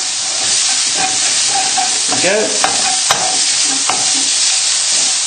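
Bacon, shallots and garlic sizzling in hot oil in a non-stick pan on high heat, while a wooden spatula stirs them, scraping and knocking against the pan in irregular clicks.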